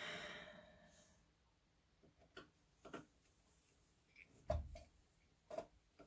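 Scattered sharp clicks and knocks of a screwdriver and loosened parts against a desktop computer's metal case, about five in all, the loudest a knock with a dull thump about four and a half seconds in. A soft hiss at the start fades away over the first second.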